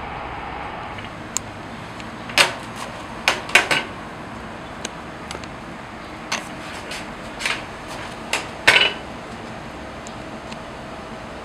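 Sharp metal clacks and clinks from working a cast-iron taiyaki griddle and its molds, about ten spread irregularly over the span, the loudest about two seconds in and near the end, over a steady background hum.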